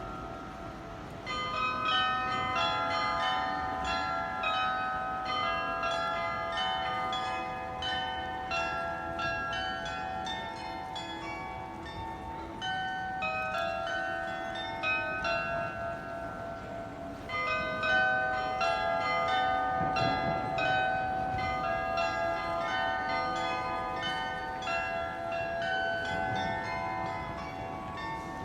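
Salzburg Cathedral's tower bells ringing, a quick, continuous run of overlapping strokes on several pitches, each note ringing on. The ringing starts about a second in and thins briefly twice, near the middle and again a few seconds later.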